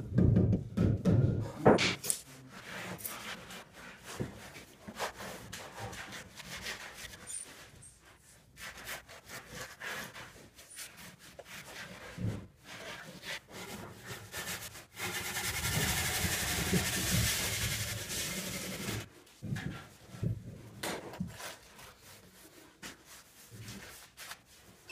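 Rubber mallet knocking a sibit (aerated concrete) block into place: a run of dull thuds in the first two seconds. Scattered scraping, rubbing and clicks of block and mortar follow, with one steady rasping scrape lasting about four seconds past the middle.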